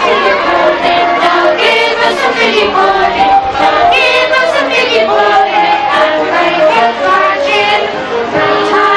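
A choir singing, with children's voices to the fore.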